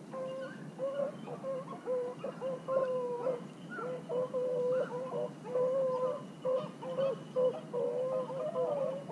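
A pack of beagles baying on a rabbit's trail, long wavering howls that overlap one another with hardly a break. The running bay is the sign that the hounds are pushing a rabbit.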